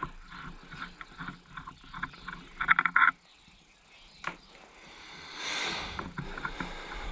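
Metal hand tools clinking and rattling as they are handled, with a brief loud rattle of sharp clicks about three seconds in, a single click a little later, and a short rustling scrape near the end.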